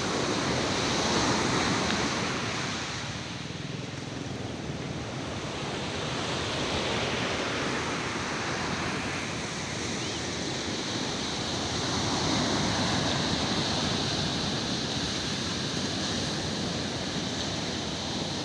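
Heavy sea surf: large waves breaking and washing in, the rush swelling and easing every few seconds, with wind on the microphone.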